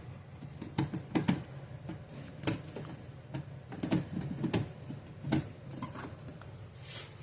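Irregular light clicks and knocks of a plastic smoke detector being handled, about eight scattered taps.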